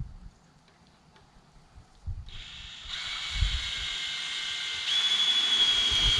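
Power drill driving a screw through a wooden roofing slat into a rafter. It starts about two seconds in, grows louder about a second later, and picks up a steady high whine near five seconds in.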